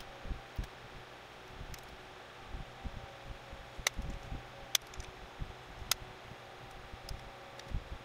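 Loose wires of an engine wiring harness being handled and sorted: soft rustling and handling knocks, with a few sharp clicks around the middle, over a steady background hum.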